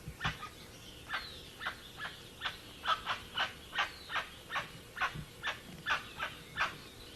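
Guan (jacu) giving a steady series of short, sharp calls, about two to three a second, with a faint falling whistle about a second in.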